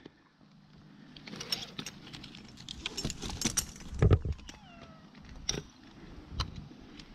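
Climbing rope and metal gear being handled against the tree bark, giving scattered clinks and knocks. A kitten meows once, a short falling call, about halfway through.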